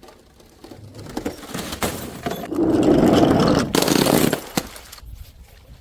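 Something being crushed: scattered cracks and clicks, then a dense crunching and crackling that lasts just under two seconds, followed by a few more cracks.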